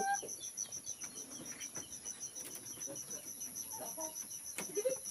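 Insects trilling steadily: a high, even pulsing about six times a second over a steady high whine. The end of a rooster's crow cuts off right at the start, and a short sharp click comes about four and a half seconds in.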